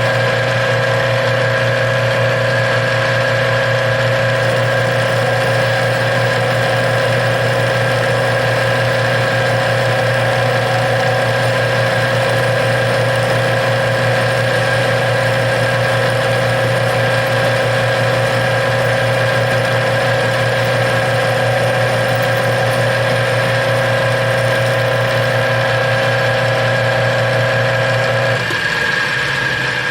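Metal lathe running steadily with a gear whine as it turns a chunk of aluminum round for a fuel-tank petcock adapter. Near the end the whine drops away as the lathe is shut off.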